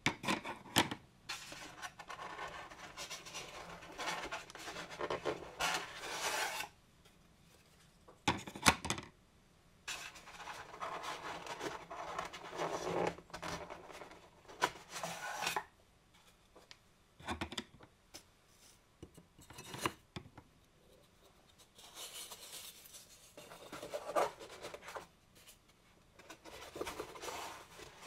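Hands pulling and pressing a black moulded foam packaging insert inside a cardboard box: stretches of foam rubbing and scraping against the box, broken by a few sharp knocks, with quiet pauses between.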